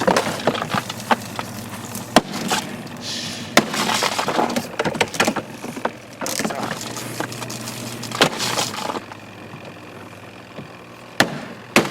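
Small plastic RV washing machine being broken apart: irregular sharp cracks, knocks and clatter of breaking plastic, over a steady low hum. The impacts thin out after about nine seconds, with one loud crack near the end.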